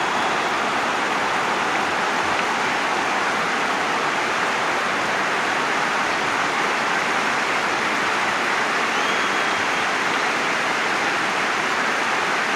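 A large crowd of fans cheering in a steady, unbroken wash of noise.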